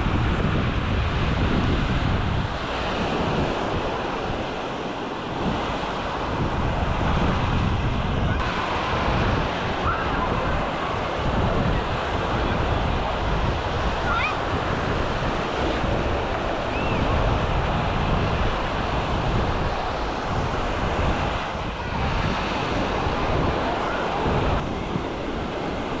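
Small surf washing onto a sandy shore, with wind gusting on the microphone and distant voices of beachgoers.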